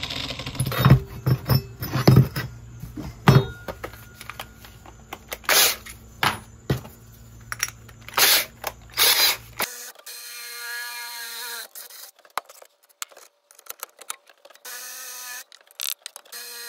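Knocks and clicks of tools and metal parts being handled on a workbench, then a power drill with a twist bit running in several short spells of steady motor hum in the second half.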